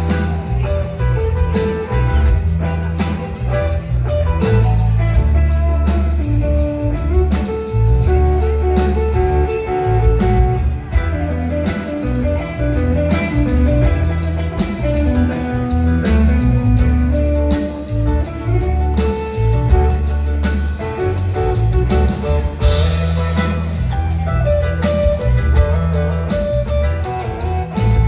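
Live band playing an instrumental passage: an electric guitar lead over a heavy bass line and a steady drum beat.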